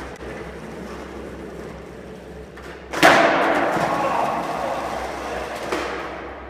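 A skateboard smacks down hard on concrete about three seconds in, then its wheels roll on across the smooth concrete floor, the rumble fading away while the garage echoes it. The board is rolling riderless after a missed freestyle trick, with a smaller click near the end.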